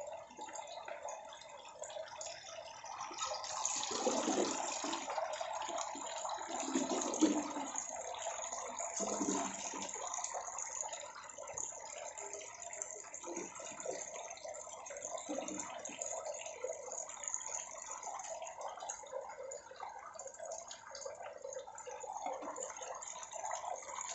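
Watery vegetable stew sloshing and splashing as it is ladled from an enamel pot into stainless-steel dog bowls.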